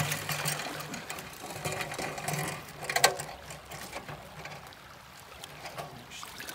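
Aluminium sluice box being handled and tipped over a plastic bucket, with water running off its end and rattling and scraping from the metal. A single sharp knock about three seconds in is the loudest sound.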